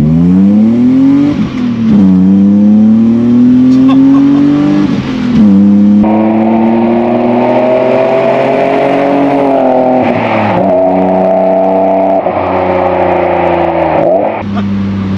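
BMW M52B28 2.8-litre straight-six in an E30, through its custom stainless exhaust with two catalytic converters and two silencers, accelerating hard through the gears. The engine note climbs steadily in each gear and drops briefly at each upshift, about every four to five seconds.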